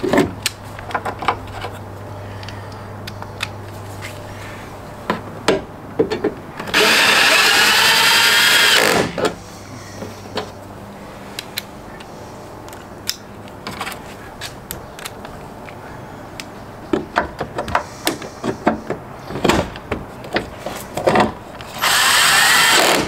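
Ryobi cordless drill running in two bursts, one about two seconds long about seven seconds in and a shorter one near the end, driving the headlight's two mounting screws back in. Between the bursts come scattered clicks and knocks of handling the headlight and the tool.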